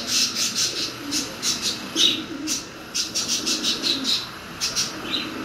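Domestic pigeons cooing low, with quick runs of high-pitched bird chirping over them.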